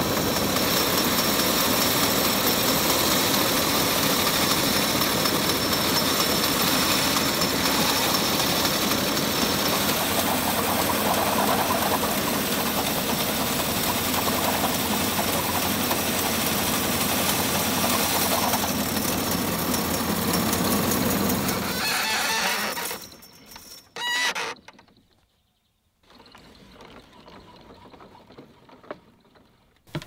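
Homemade bandsaw sawmill running, its blade cutting through a walnut log with a loud, steady sound. The sound falls away about 22 seconds in, with one brief loud burst a couple of seconds later.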